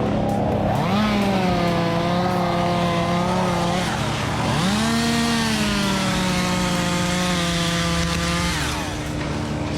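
Chainsaw revving up to full throttle and held while cutting through wood, twice: each time the pitch climbs sharply, sags slightly and holds for three to four seconds, then drops back to idle.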